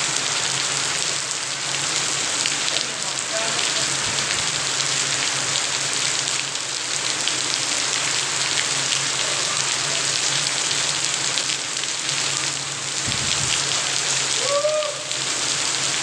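Rain pouring steadily onto a flooded concrete yard: a dense, even hiss of drops splashing on standing water.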